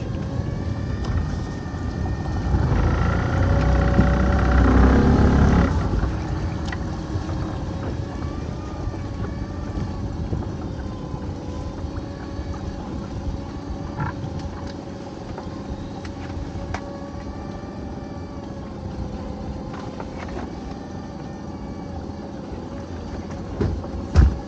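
Small boat's outboard motor running steadily, swelling louder for a few seconds a couple of seconds in, with a sharp knock near the end.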